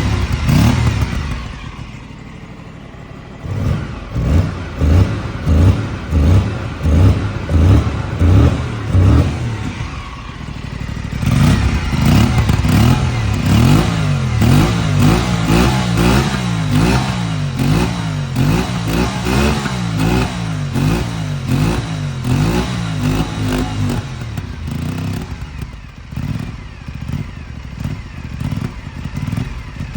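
Aprilia Tuono 457's parallel-twin engine revved while standing: it dips to idle, is blipped sharply about once a second for several seconds, then is held at higher revs with the pitch swinging up and down, and settles back toward idle near the end.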